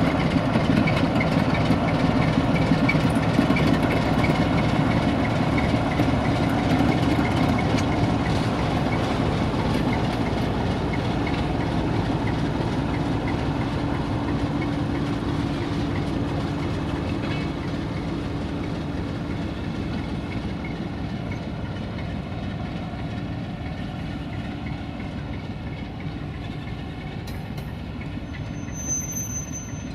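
Diesel engine of an Electroputere LDE2100 (060-DA) diesel-electric locomotive running while it shunts, with wheels clicking over the rails, growing gradually fainter. A brief high-pitched squeal comes near the end.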